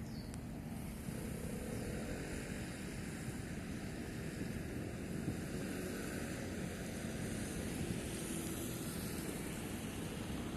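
Boat engines running as a steady low rumble.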